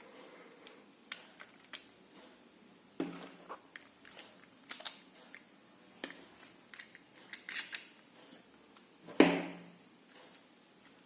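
Small clicks, ticks and taps of hands handling robot chassis parts while fitting and tightening bolts and nuts, with a louder knock about three seconds in and another near the end.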